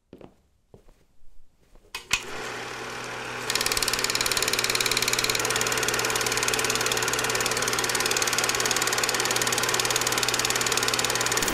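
Vintage reel-to-reel film projector: a few faint clicks, then a sharp click about two seconds in as its motor starts running. About a second and a half later a louder, fast, even clatter joins in and runs steadily.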